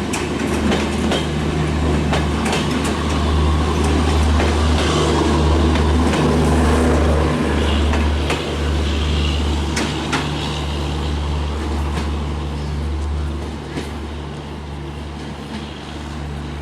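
ALCo diesel locomotive engine running with a deep, steady drone, with the train's wheels clicking over rail joints. It is loudest in the middle and fades somewhat near the end.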